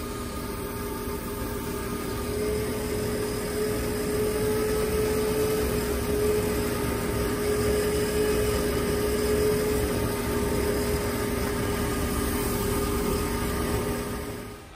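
Airbrush air compressor running steadily: a motor hum with one held tone under a hiss of air, cutting off shortly before the end.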